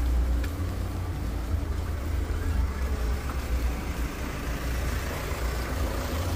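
Rain falling on a wet street, an even hiss over a constant low rumble.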